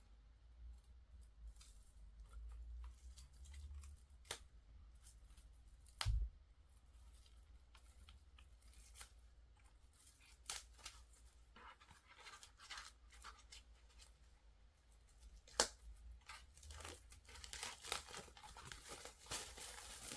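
Plastic shrink wrap being torn and peeled off a CD album, faint, with scattered clicks and a louder knock about six seconds in, and crinkling that grows denser near the end.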